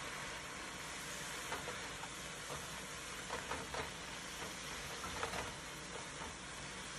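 Baby spinach sizzling with a steady hiss as it wilts in butter in a nonstick frying pan. A utensil stirring the leaves scrapes and taps against the pan several times.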